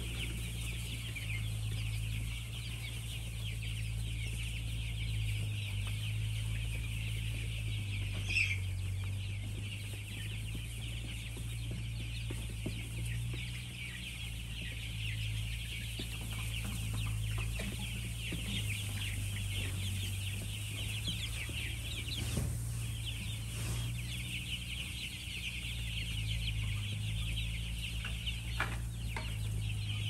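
A large flock of young chicks peeping constantly, many high chirps overlapping into a continuous chorus, over a low steady hum.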